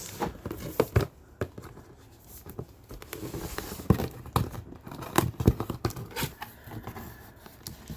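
Boxed machine being unpacked by hand: cardboard and packaging tearing and crinkling, with scattered sharp knocks as the box and contents are handled.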